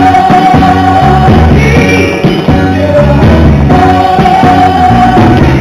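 Dance music with singing, played loud over a roller rink's sound system.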